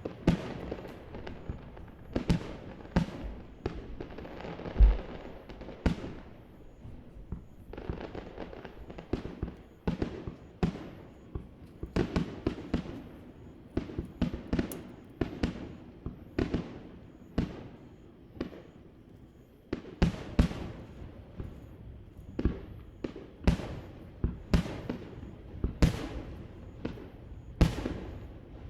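Aerial fireworks bursting in quick, irregular succession: dozens of sharp booms, about one or two a second, each trailing off in an echo. The loudest burst comes a little before the five-second mark.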